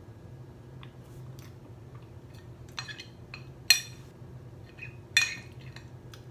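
Metal spoon clinking and scraping against a glass dish while scooping ice cream. There are a few ringing clinks, the loudest about halfway through and another about five seconds in.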